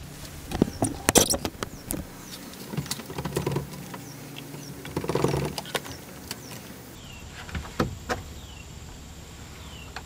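Clicks, knocks and rattles of hands working the chrome lever off a Yamaha 704 remote control, metal and plastic parts being wiggled and pulled free after its two retaining screws are out.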